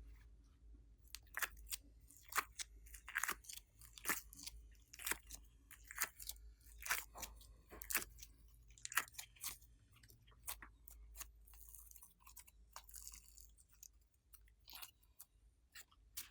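Glossy slime being squeezed and worked by hand, giving a run of sharp, wet clicks and pops from trapped air, irregular and about one or two a second.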